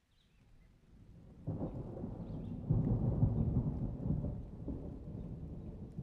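A roll of thunder: a low rumble that builds from near quiet, jumps up about a second and a half in, is loudest around three seconds and then slowly dies away, over rain.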